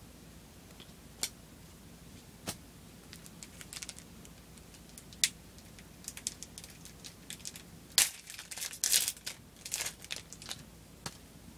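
Plastic trading-card booster pack wrapper being handled and torn open: a few sharp crackles at first, then a dense run of crinkling and tearing from about eight seconds in.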